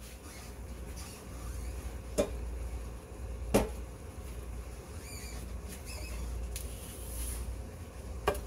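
Sirloin steak pieces sizzling steadily in oil in a stainless steel skillet, with three sharp knocks, the loudest about three and a half seconds in.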